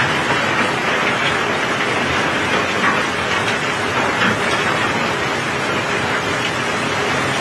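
Steady rain on a steel barge deck, mixed with the continuous rumble and clatter of cobblestones pouring off the barge during unloading.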